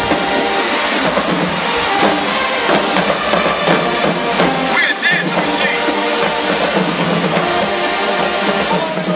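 HBCU marching band playing: brass carrying a melody over a driving drumline of snare, bass drums and cymbals.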